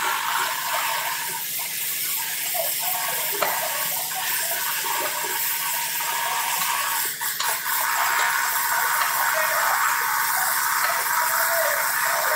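Steady hissing noise, with faint voices underneath.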